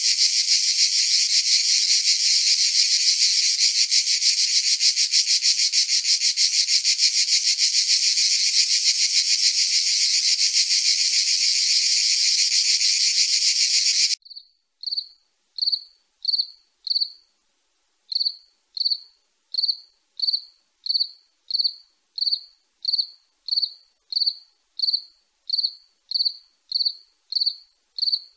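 Night insects: a loud, continuous, fast-pulsing insect buzz stops abruptly about halfway through. After it, a single cricket chirps steadily on one high pitch, about one and a half chirps a second.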